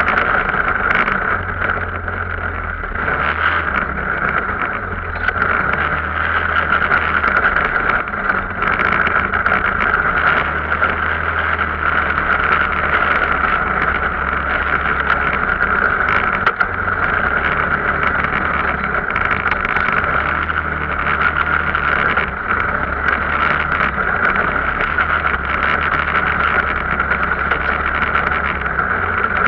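Engine of an Arctic Cat off-road vehicle running steadily while riding, with a continuous drone and low hum.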